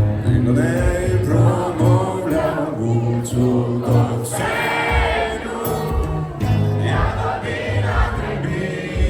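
Background song with singing voices and choir-like backing over a steady bass beat.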